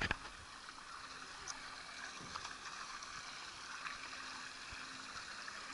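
Faint, steady rush of water running down a waterslide, with a few light knocks.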